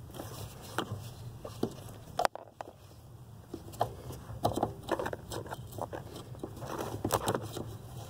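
Scattered small clicks, taps and rustling from a gloved hand working around the brake pedal bracket and wiring under a car's dashboard, over a steady low hum.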